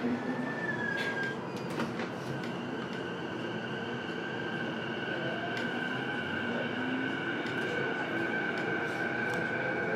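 Inside an E233-7000-series electric multiple unit's motor car as it pulls away and accelerates: the inverter and traction motors whine with steady high tones and a lower tone that rises in pitch over the second half, over the rumble of wheels on rail.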